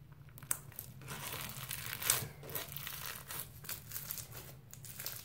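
Crunchy green bead slime being stretched and squeezed by hand, its beads crackling and popping in a dense, irregular crunch.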